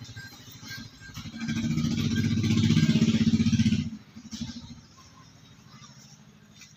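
A small engine running close by, swelling about a second in and cutting off abruptly about four seconds in, leaving only faint background.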